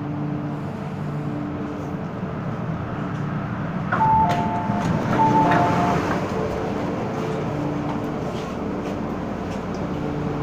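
Steady hum of an MTR M-Train at the platform, with a descending two-note electronic chime sounded twice about four seconds in: the train's door-closing warning.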